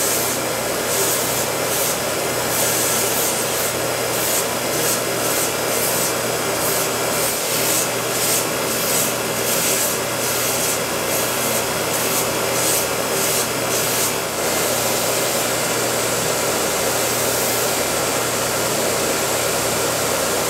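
Belt grinder running with a knife handle held against the abrasive belt, grinding and shaping the handle material. The grinding pulses in scratchy strokes a few times a second, then settles into a steady, even run about two-thirds of the way through.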